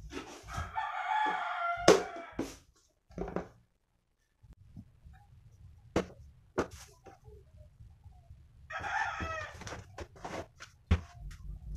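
A drawn-out pitched animal call, about a second long, heard twice: once near the start and again about nine seconds in. In between come scattered clicks and knocks of small objects being handled on a table.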